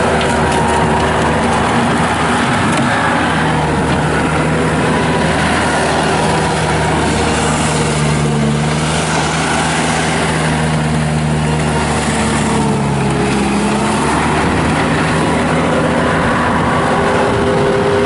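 Bobcat T300 tracked skid steer's Kubota turbo diesel running steadily as the loader drives and turns on dirt. The engine note is steady, shifting pitch a little in the middle as the machine swings around.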